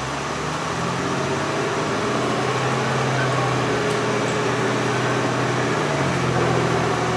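City bus engine pulling under load, heard from inside the cabin. Its hum sets in at the start and grows a little louder, then dips in pitch and climbs again about six seconds in, like a gear change.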